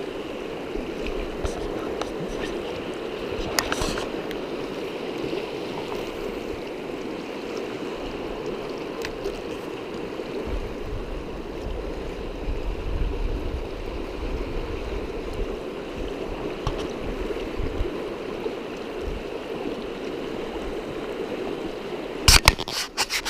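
Flowing stream water, a steady rushing wash. There are a few faint knocks about four seconds in and a quick run of sharp, loud knocks near the end.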